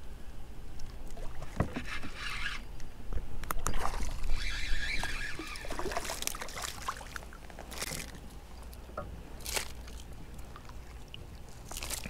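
Water splashing and sloshing beside a kayak as a small hooked speckled trout is reeled in and lifted out, with a few sharp splashes.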